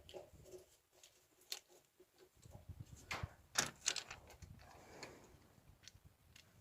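Faint metallic clicks and taps of a wrench working the 10 mm cover bolts on a Lifan engine, with a cluster of sharper clicks about three to four seconds in. The bolts turn with almost no effort: they were loose.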